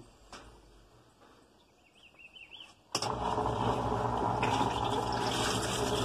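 After about three seconds of near quiet, a Brastemp washing machine's drain pump starts suddenly and runs steadily, with a low hum under water gushing from the drain hose into the tub. The pump has been cleaned and refitted and is pumping properly again.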